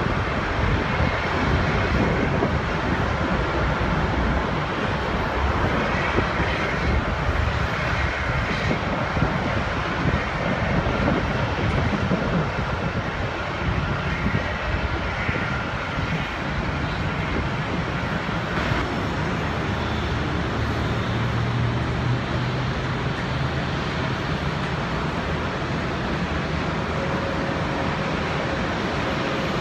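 Jet airliner engines running at an airport: steady broad engine noise, with a deeper low rumble swelling about twenty seconds in.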